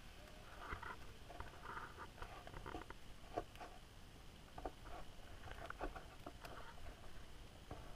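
Faint underwater sound picked up by a submerged camera: irregular soft clicks and short crackles scattered every half second or so over a low rumble.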